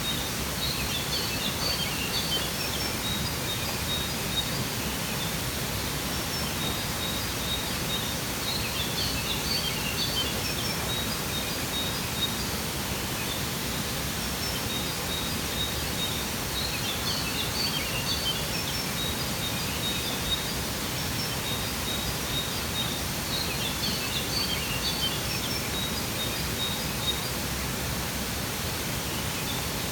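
Steady rush of a waterfall, with small birds calling over it: bursts of high chirps come back about every seven to eight seconds, with short repeated high notes between them.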